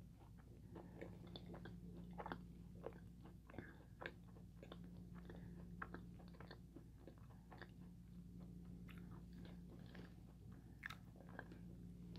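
Faint chewing of a mouthful of macaron, with small irregular crackles and clicks.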